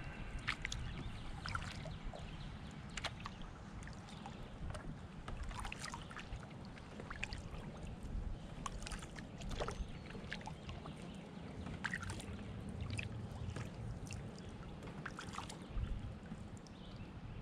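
Canoe being paddled: water splashing and dripping with each paddle stroke, as a run of short irregular drips and splashes over a low steady rumble.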